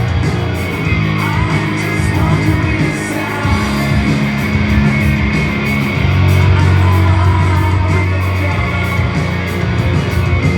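Live heavy rock band playing loud, distorted guitars over bass and drums, with a shouted vocal at times.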